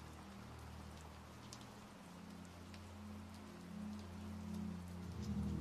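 Steady rain falling on a hard wet surface, with scattered individual drop ticks, over a soft, low sustained ambient music pad.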